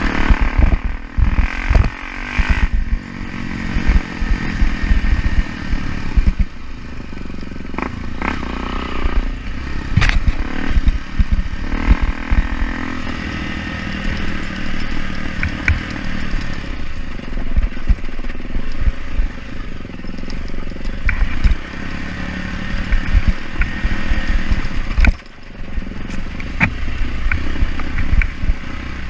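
Off-road motorcycle engine running and revving up and down unevenly while riding a muddy trail, with scattered knocks and clatter from the bike over rough ground. The engine sound dips briefly near the end.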